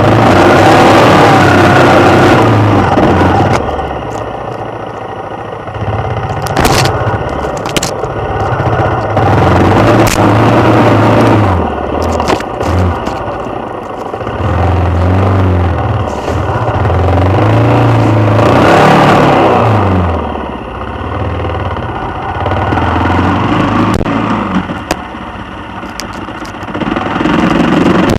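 Suzuki XF650 Freewind's single-cylinder four-stroke engine revving up and down repeatedly as the motorcycle is ridden off-road, with a few sharp knocks and clatter along the way.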